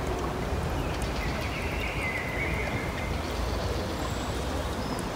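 Steady outdoor background noise with a low rumble, like distant traffic or wind on the microphone, and faint bird chirps about a second or two in.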